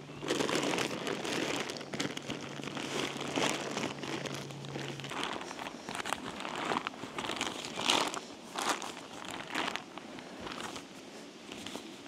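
Tent fabric and stuff sacks rustling and crinkling in irregular handfuls as they are pressed, rolled and compressed while packing a tent away.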